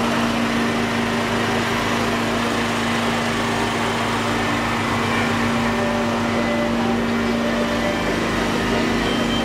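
An engine running steadily, giving an unbroken hum with a pulsing low rumble, under the murmur of a street crowd.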